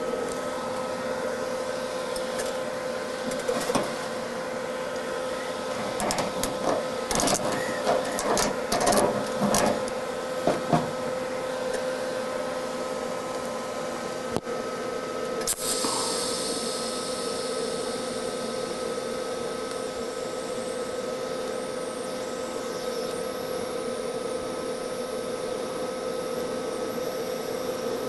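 TIG welding arc on steel car body sheet metal, a steady buzzing hum. From about 3 to 11 seconds in there is irregular crackling and popping as the arc burns out contamination, taken to be Bondo, in the hole. About 15 seconds in a hiss comes in and carries on.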